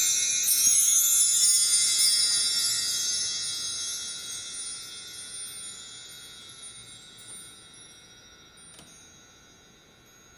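Many small metal chimes ringing together and slowly dying away over several seconds, with one faint tick near the end.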